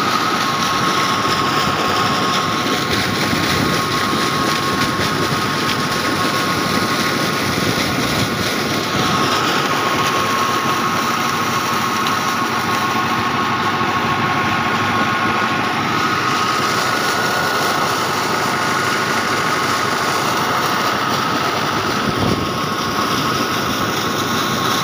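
Engine running steadily, driving a tube-well centrifugal water pump through a drive shaft, with a steady whine. Water gushes hard out of the discharge pipe into the channel.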